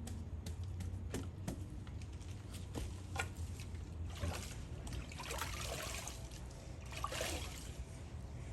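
Water trickling and splashing from a wet sponge being squeezed and wiped over brickwork to dampen it before mortaring, with a few light clicks. There are two splashier spells, the first in the middle and the second near the end.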